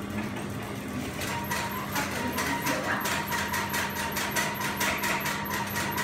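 Industrial sewing machine running: a steady motor hum, joined about a second in by a thin whine and even ticking at about four a second.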